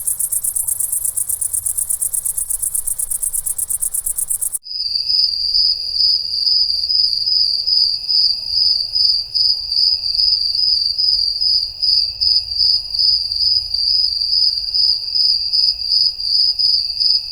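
Insects calling: a fast, very high pulsing buzz that cuts off about four and a half seconds in, replaced by a cricket's steady high-pitched trill that swells and dips in level a couple of times a second.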